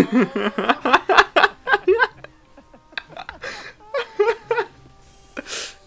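A man laughing hard in quick repeated bursts, tailing off into a few shorter chuckles and a breathy exhale, with faint steady music tones coming in near the end.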